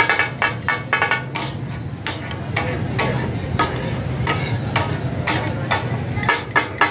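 Two metal spatulas clattering and chopping on a large iron tawa griddle, the strikes coming quick and irregular, over the sizzle of meat frying.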